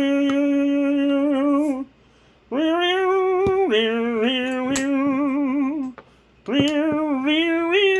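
A voice singing long, drawn-out held notes in three phrases with short breaks between them; the middle phrase drops in pitch partway through.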